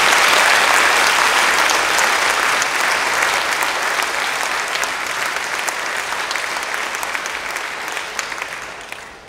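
Audience applauding. The clapping is loud at first, eases off and dies away in the last second.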